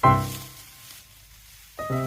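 Background music: a note sounds at the start and fades away, then the tune picks up again near the end.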